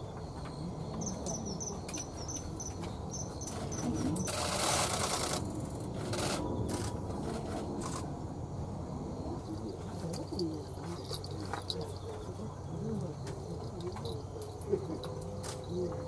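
Common kingfisher giving a run of short, high, sharp calls, about two to three a second: threat calls in a territorial dispute with another kingfisher. A rush of noise lasting about a second comes about four seconds in and is the loudest thing heard.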